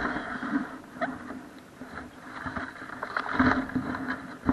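RC boat motor humming unevenly, heard from on board, with water splashing against the hull and scattered sharp knocks; the hum swells a little past halfway, and a louder knock comes near the end.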